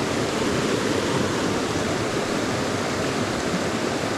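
Steady rushing of a fast mountain river's current, an even loud water noise with no separate events.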